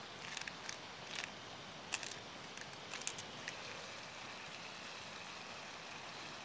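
Venison steaks sizzling in an oiled cast iron skillet over a campfire: a steady hiss, with sharp crackles and pops through the first few seconds that then die away to the hiss alone.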